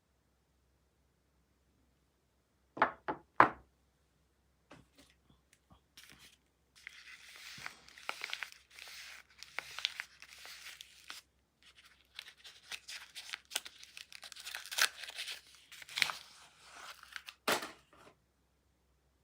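Soap wrapper being torn open and crinkled off a bar, a long crackling rustle full of small ticks. Two sharp knocks come about three seconds in and another near the end, as the bar or packaging is set down.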